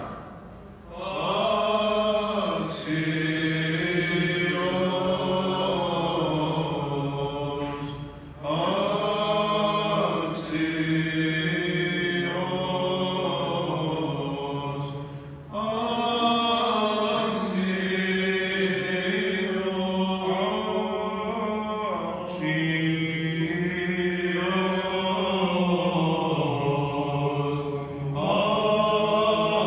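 Greek Orthodox Byzantine chant sung by voices in long phrases, a low note held steadily beneath a moving melody (the ison drone), with brief pauses between phrases.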